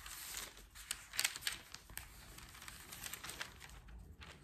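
Faint, irregular light clicks and rustles, with a few slightly louder clicks around a second in.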